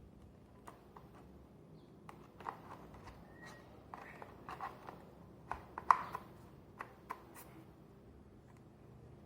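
Irregular clicks, taps and light knocks of hands handling the parts and packaging of a mushroom-shaped mosquito killer, with one sharper knock near the six-second mark.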